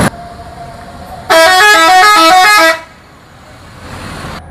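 Multi-tone musical bus horn on a tour coach playing a short tune of several notes stepping up and down, lasting about a second and a half and starting about a second in.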